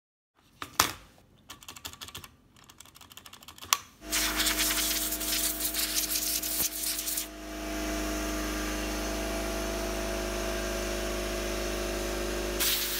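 Light scattered clicks, then a compressed-air blowgun blasting air over the Apple IIc keyboard's exposed key switches. An electric air compressor's motor starts with it and keeps running with a steady hum. The air blast stops about seven seconds in and starts again near the end.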